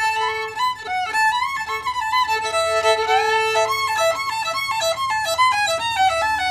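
Solo fiddle playing a fast lick in the key of A, quick notes with slides between them and a lower note droning under parts of the run.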